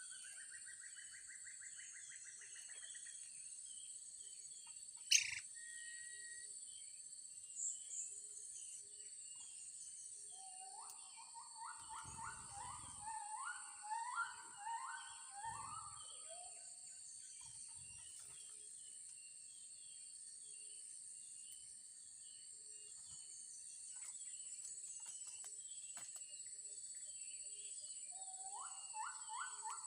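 Birds calling over a steady high-pitched drone: many short, high chirps throughout, which fit blue-crowned hanging parrots around the trap, and a lower phrase of rising whistled notes about eleven seconds in, again near the end. One sharp click about five seconds in.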